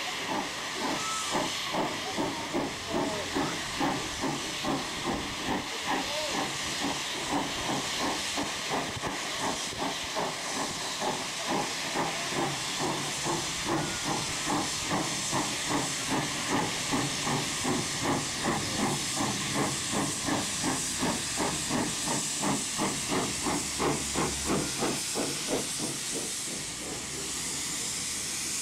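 Two steam locomotives double-heading a train, working hard as they pull away, their exhausts chuffing in a regular beat that quickens to about two beats a second. Near the end the beat gives way to a steady hiss of steam as the engines pass close by.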